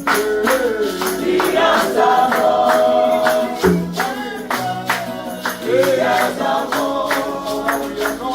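Gospel worship music: a choir singing a held, sliding melody over a steady beat of bright percussion hits.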